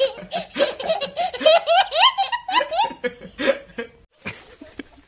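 A young child laughing hard, a quick run of high-pitched belly-laugh bursts that breaks off about four seconds in.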